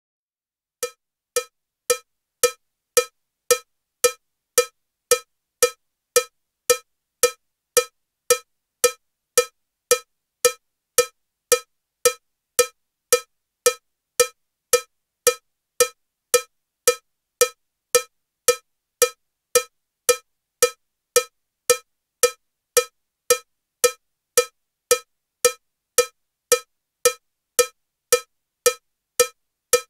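Metronome ticking with a cowbell sound at 112 beats per minute: a short, bright cowbell hit just under twice a second, every beat the same, starting just under a second in. The first few hits are a little softer.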